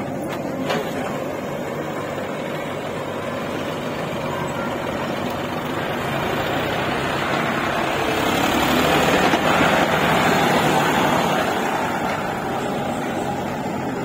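John Deere 50 HP tractor's diesel engine running under load as it pulls a trailer heaped with soil, growing louder as it drives up and past, loudest about eight to eleven seconds in.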